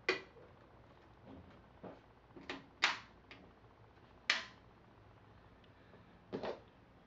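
Small metal screws and fingers clicking and tapping against a sheet-metal computer case as the screws are picked up and handled: a handful of short, sharp clicks, the loudest about three and four seconds in and a quick double click near the end.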